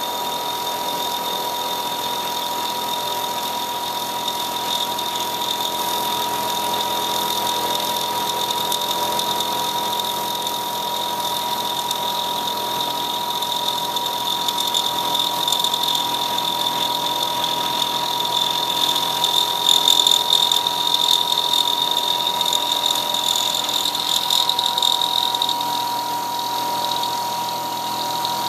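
CNC milling machine spindle running with a steady whine while a small end mill cuts the four-start thread of a worm gear, under the hiss of a coolant mist spray. The cutting grows louder and rougher about two-thirds of the way in, then eases near the end.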